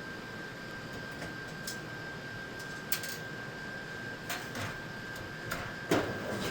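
Scattered light clicks and taps of screws and a screwdriver against a vending machine's metal tray support rail as the screws are put back in, the loudest near the end. A steady faint high-pitched whine runs underneath.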